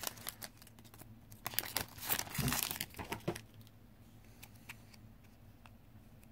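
Foil Magic: The Gathering booster pack wrapper crinkling and tearing open, in bursts for about two seconds, then quiet with a few faint clicks as the cards are handled.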